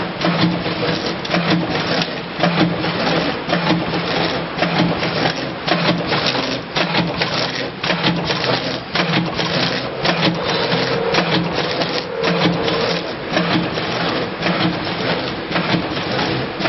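VL450 vertical form-fill-seal granule/powder packing machine running, a continuous rapid mechanical clatter of clicks over a pulsing hum.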